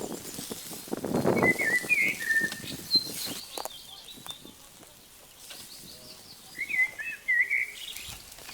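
A songbird singing two short warbling, chirping phrases, the first about a second and a half in and the second near the end. A short burst of rustling, clicking noise comes about a second in.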